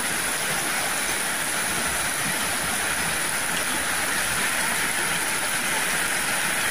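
Heavy rain falling hard and steady on roofs and a wet paved alley, an even hiss with no letup.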